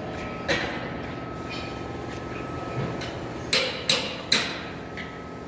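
Sharp hammer blows on metal with a short ring after each: a single strike about half a second in, then three quick strikes about three and a half seconds in, over steady workshop background noise with a faint steady high tone.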